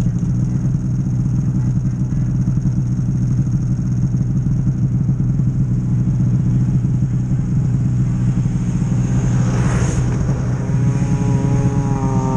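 An engine idling steadily. About ten seconds in, a second engine comes up and grows louder, a snowmobile approaching along the trail.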